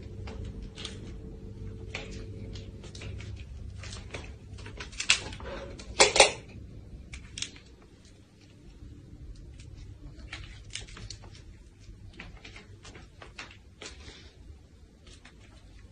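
Irregular light clicks and knocks on and off, with two louder knocks about five and six seconds in.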